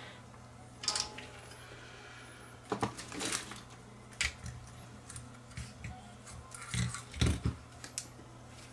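Scattered clicks and knocks of a small electronic part and a soldering iron being handled over a circuit board on a silicone repair mat, with the loudest knocks about a second in, around three seconds in and near seven seconds in, over a faint steady low hum.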